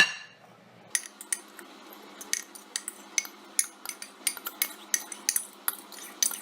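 A metal fork clinking and scraping against a mug in a quick, irregular run of sharp clinks, starting about a second in, as microwaved scrambled egg is scooped out.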